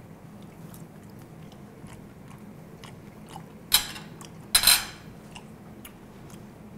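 Eating at the table: scattered light clicks of cutlery and quiet chewing, with two louder brief rasps around the middle, over a faint steady hum.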